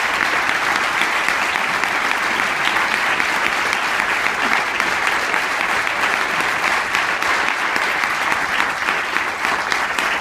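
An audience applauding: steady, unbroken clapping from many hands.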